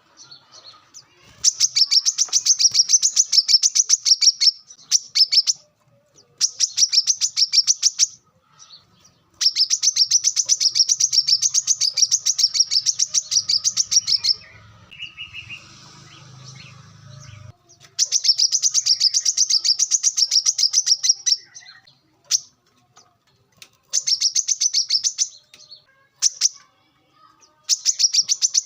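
Brown-throated sunbird (kolibri kelapa) singing: fast, high, evenly repeated trilling notes in loud bursts of one to five seconds, broken by short pauses.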